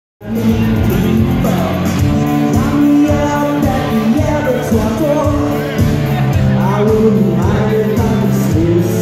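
Live rock band playing: electric guitars and drums with a lead singer, heard loud from within the audience at a small venue.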